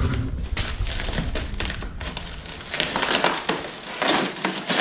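Hands working parts out of a white polystyrene foam packing insert: irregular crunching, scraping and squeaking of the foam, busier in the second half.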